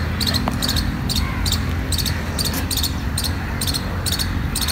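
An insect chirping in short high-pitched pulses, about two a second, over a low steady outdoor rumble.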